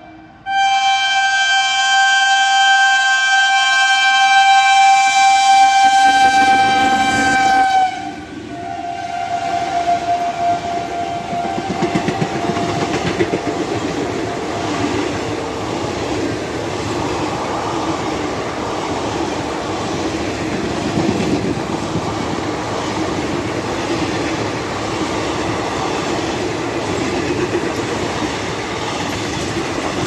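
WAP-4 electric locomotive's multi-tone horn held for about eight seconds, dropping in pitch as the locomotive passes and then fading. Then the rumble and rapid clatter of the train's ICF coaches passing at high speed.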